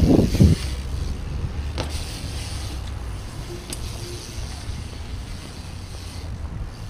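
BMX tyres rolling over wet concrete, a steady low rumble, with a loud thump just at the start and a couple of sharp clicks from the bike.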